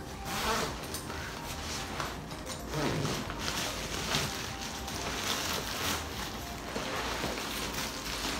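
Zipper on a kite bag being pulled open, then crisp new nylon kite canopy and bag fabric rustling and crinkling as the packed kite is lifted out.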